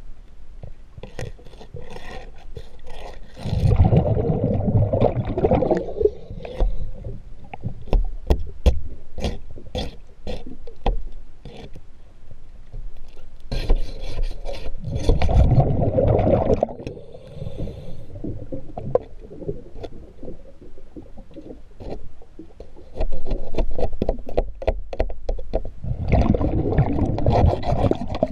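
Scuba diver breathing through a regulator underwater: three breaths, each a hissing inhale followed by a long rumble of exhaled bubbles. Between the breaths come sharp clicks and scrapes of tools working on the boat's propeller shaft to change the zinc anode.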